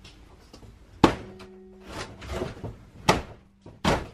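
Three loud knocks as a hand tool is struck against the ceiling of a gutted camper trailer during demolition, with scraping between the blows.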